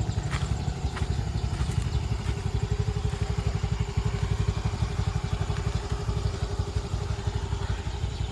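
Motorcycle engine running steadily under way, a loud, fast low pulsing with a steady hum over it.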